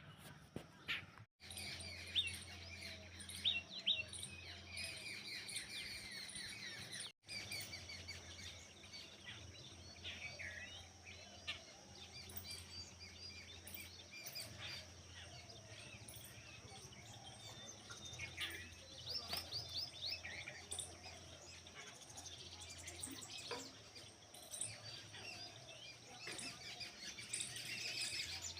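Several small birds chirping and singing in a morning chorus, many short high calls overlapping throughout, over a low steady hum.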